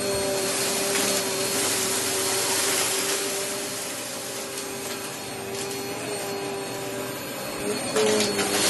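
Vacuum cleaner running with a steady whine, crunching and crackling as it sucks up glitter, sequins and confetti from a rug; it gets louder briefly near the end.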